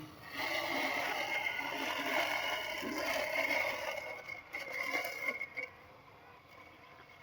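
Robotic lawn mower running, a steady high motor whine over a rough scraping hiss, which drops away about six seconds in.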